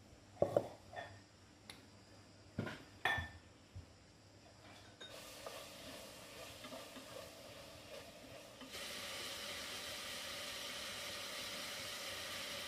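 Metal cooking pots knocked and set down on a stove top, several clanks in the first few seconds. Then meat frying in a pot, a steady sizzle that gets louder about three seconds before the end.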